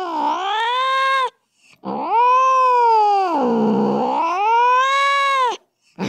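A cat yowling in long, drawn-out meows. One call ends about a second in. After a short pause a longer one follows that dips in pitch in the middle, rises again and cuts off near the end.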